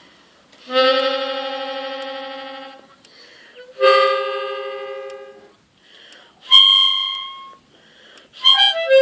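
A gaita, a free-reed instrument, sounds three long held notes, each fading away, followed by a quick falling run of short notes near the end.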